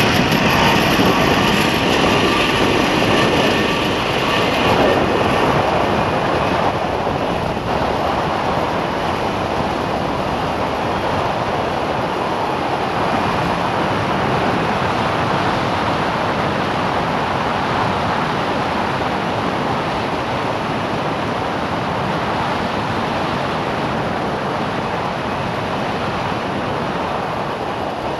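Rushing wind buffeting a head-mounted camera's microphone on a fast zip-wire ride, together with the steady run of the trolley along the steel cable. It is loudest just after release and then settles into a steady roar.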